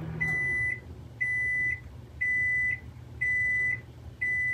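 A microwave oven's running hum cuts out just after the start, and its end-of-cycle alert sounds: five identical high beeps, each about half a second long, one a second.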